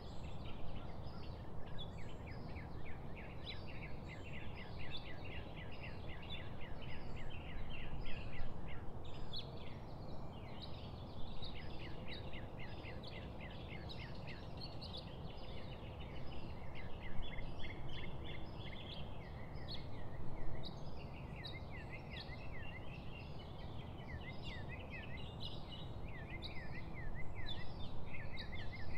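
Many birds chirping together, short high calls repeated several times a second and overlapping, over a steady low background rumble.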